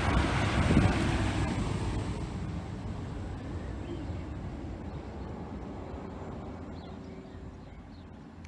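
TransPennine Express Class 185 diesel multiple unit passing with a rumble and rail noise, loudest about a second in, then fading steadily as it runs away.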